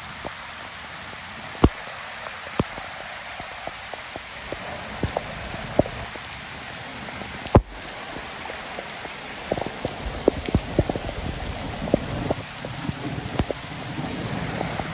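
Rain falling steadily, with nearby drops striking a surface in sharp, irregular taps that come more often in the second half. One louder sharp knock about halfway through.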